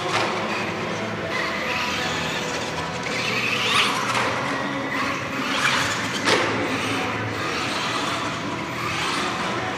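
Traxxas Rustler RC truck's Velineon brushless (VXL) motor whining, rising and falling in pitch several times as the truck speeds up and slows around the track, with music playing underneath.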